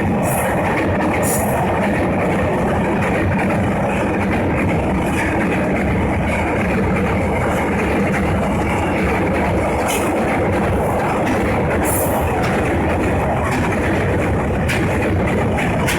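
A train running past on the rails at close range: a steady, loud rumble of wheels on track, with a few sharp clacks scattered through it.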